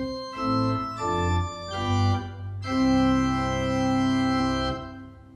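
Organ playing the closing chords of a piece, then a long held final chord about three seconds in that is released just before the end and fades out.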